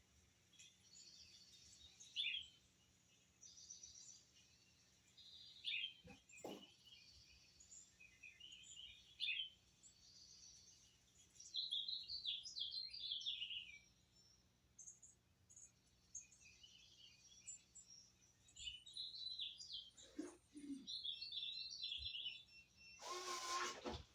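Small birds chirping and trilling, faint, in short quick phrases of high notes, with a few soft knocks and a brief louder noise near the end.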